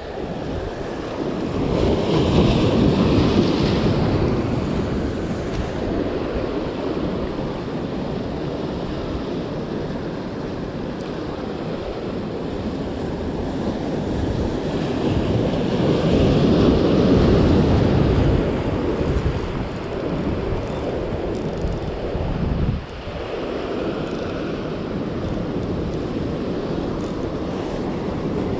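Heavy surf surging and breaking against the boulders of a rocky breakwater, with wind buffeting the microphone. The wash swells louder a couple of seconds in and again about halfway through.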